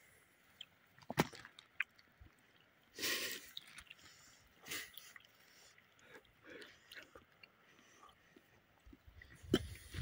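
Quiet eating and drinking sounds: scattered small clicks and mouth noises from chewing, with a short airy sound about three seconds in and a smaller one near five seconds, as the man eats honey and sips from a small glass.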